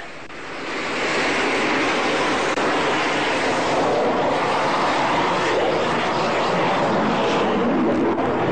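Fighter jet's engines running loud as the aircraft sinks low over the airfield, a steady noise that builds over the first second and then holds.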